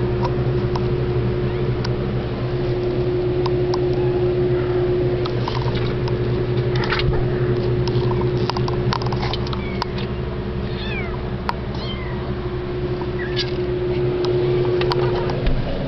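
Young kittens mewing, several short, thin, high-pitched falling mews, mostly in the second half, over a steady low hum and scattered small clicks.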